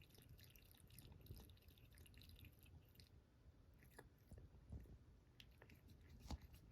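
A cat lapping water with its tongue: faint, quick wet licks and small clicks, irregularly spaced.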